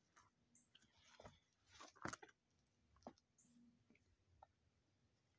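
Faint, scattered footsteps and knocks on the wooden ties of an old, rotted railroad trestle, the loudest about two seconds in.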